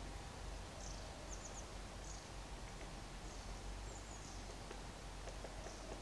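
Faint, thin high-pitched chirps of small birds calling now and then, one quick run of three about a second and a half in, over a steady low outdoor rumble. Near the end come a few faint taps from a great spotted woodpecker pecking at a cone wedged in the bark.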